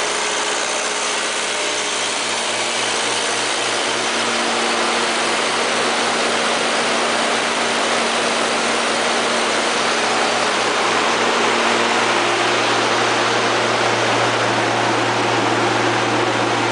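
Katolight 25 kW diesel generator set, driven by a John Deere diesel engine, running steadily with a constant mechanical hum; the low hum turns smoother and a little stronger about twelve seconds in.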